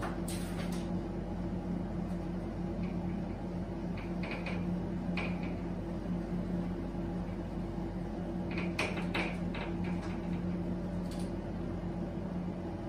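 Whiteboard being wiped with a duster: a few faint, brief rubbing strokes, clustered about four to five and nine seconds in, over a steady low hum in the room.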